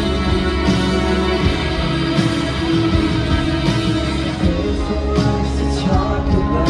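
Live rock band playing loud amplified music: sustained chords with regular drum and cymbal hits.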